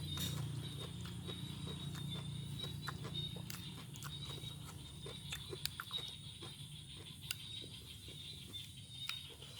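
Close-up eating of a raw vegetable salad: chewing with irregular crunches and wet mouth smacks.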